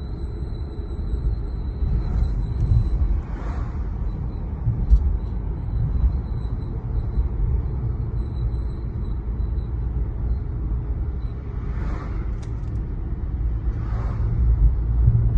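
Cabin sound of a 2019 Mercedes-Benz E450 on the move: low road and drivetrain rumble with a faint high-pitched brake whistle over it, steady for the first few seconds and then coming and going in short pulses. The brakes squeal like this without the pedal being pressed, a fault the owner has not solved.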